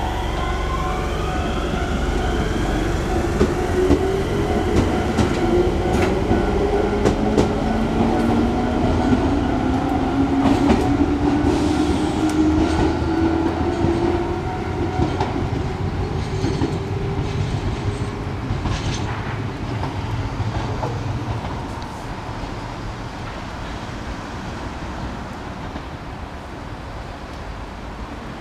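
Enshū Railway electric train pulling out of the station, its motor whine rising steadily in pitch as it gathers speed, with wheels clicking over rail joints. The sound fades away over the last several seconds as the train leaves.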